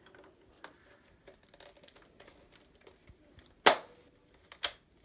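Hard plastic Nerf blaster parts being handled with small clicks, then two sharp snaps about a second apart, the first the louder, as an attachment is clicked into place on the blaster.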